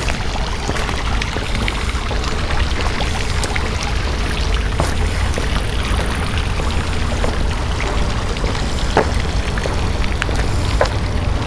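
Wind rumbling on the microphone over a steady outdoor hiss, with scattered light footsteps on a paved and gravel path.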